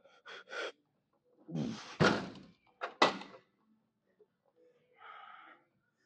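Plate-loaded leg extension machine's weight arm coming down with two heavy thunks about a second apart, alongside a strained, groaning exhale from the lifter after a hard set.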